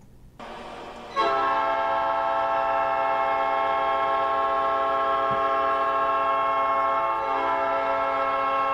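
Hockey goal horn sounding: a loud, sustained multi-tone horn blast that comes in about a second in and holds steady.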